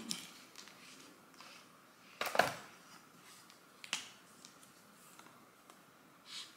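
Faint handling sounds as a highlighter and small items are picked up and moved on a tabletop: a few sharp clicks spread out, with one louder, brief scrape about two and a half seconds in.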